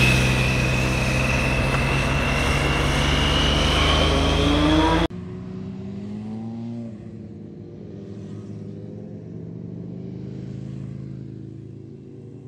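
Motorcycle engine passing close by and pulling away, its pitch rising as it accelerates, then cut off abruptly about five seconds in. A much fainter, steadier sound follows.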